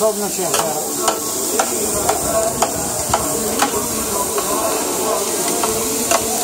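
Two metal spatulas clacking against a flat-top griddle, about two strikes a second, as chopped mixed meat is turned and cut, over steady sizzling from the hot plate.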